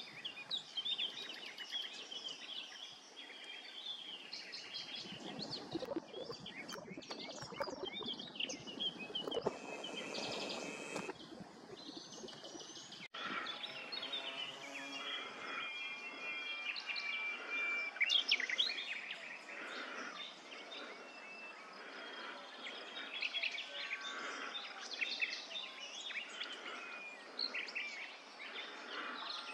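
Small birds chirping and trilling over a steady outdoor background hiss, with a brief dropout about halfway through.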